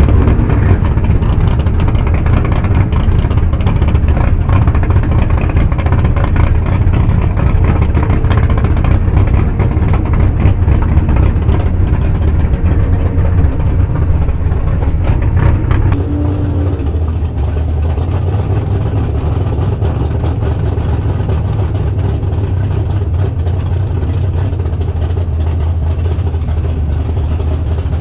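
Drag race car's V8 engine running steadily at low revs, its idle helped by a freshly swapped, smaller camshaft. The sound drops a little in level and brightness a little past halfway through.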